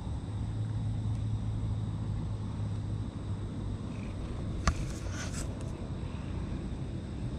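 Large tabby cat purring close to the microphone, a steady low rumble. About halfway through, a sharp click and a second of scratchy rubbing as the cat pushes its face and whiskers against the camera.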